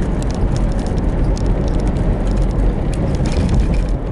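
Steady road and engine rumble inside a moving car's cabin, with scattered light ticks and rattles.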